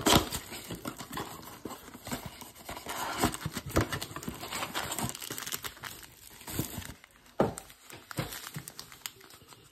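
Plastic shrink wrap crinkling as it is pulled off a trading-card blaster box, followed by the cardboard box being opened and the foil card packs handled, in irregular rustles and clicks with a few sharper taps near the end.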